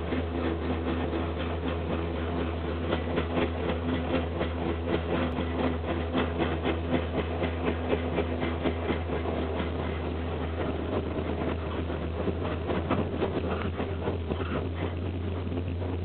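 Ski lift running, heard from aboard: a steady low mechanical hum with a fast, uneven rattle over it.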